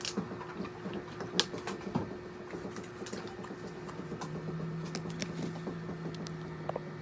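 Eating by hand: scattered small clicks and taps as food is picked up and handled, over a steady low hum that grows a little louder about four seconds in.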